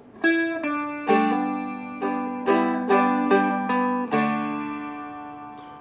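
Seagull Merlin M4, a four-string dulcimer-style instrument, picking a short melody phrase note by note. The last note, a little after four seconds in, is left to ring and fade.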